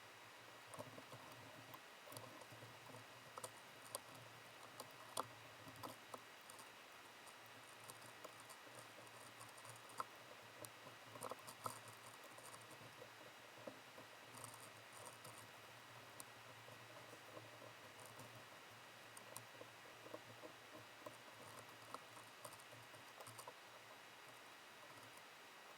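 Near silence: a low steady hum with faint, scattered light clicks and taps.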